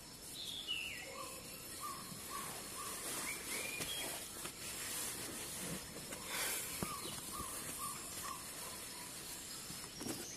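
Birds calling: a single falling chirp, then a run of short repeated notes, about two a second, that comes back about halfway through. Under it, the soft rustle of a blanket being pushed aside and folded.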